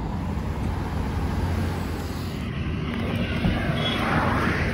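Roadside traffic: a steady low rumble of passing vehicles, with one vehicle passing close and swelling up near the end.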